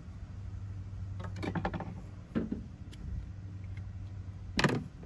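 A few rustles and knocks from a hose line and its fittings being handled in an engine bay, the sharpest knock near the end, over a steady low hum.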